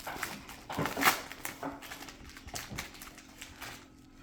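Foil wrapper of a trading-card pack crinkling and rustling as it is torn open, with short clicks and rustles of the cards being handled; the loudest rustle comes about a second in.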